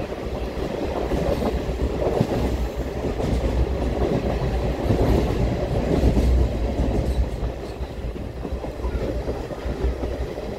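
Passenger coach of an Indian Railways express running at speed, heard from on board: a steady rumble of the wheels on the track with scattered knocks, getting louder around the middle and easing off somewhat near the end.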